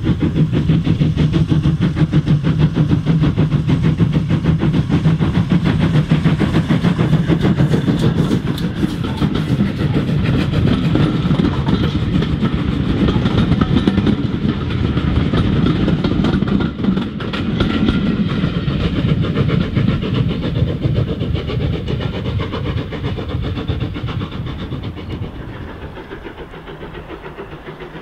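GWR 14xx-class 0-4-2 tank locomotive No. 1450 working a passenger train past at speed: its rhythmic steam exhaust beats give way to the coaches' wheels clattering over the rail joints. The sound fades away over the last few seconds as the train recedes.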